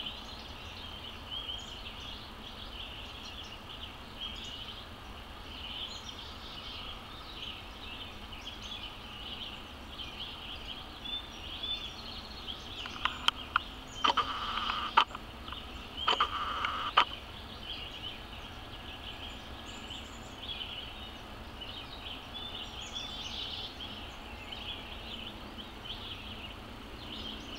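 Steady outdoor chorus of insects and birds in summer woodland, a high continuous chirring. About halfway through come a few sharp clicks and short rustling bursts, the loudest sounds.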